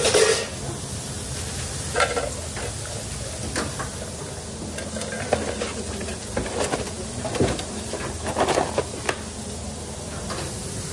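Kitchen handling noises: a stainless steel bowl clattering and scattered light knocks as fried food is tipped from it into a takeaway box, over a steady kitchen background hum. The loudest clatter comes right at the start.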